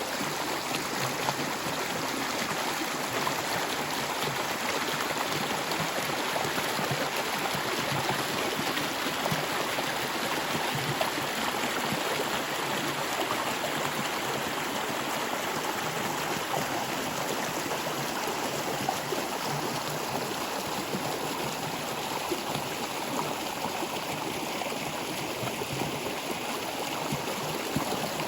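Water flowing steadily in a stream, an even rushing with small splashes and gurgles.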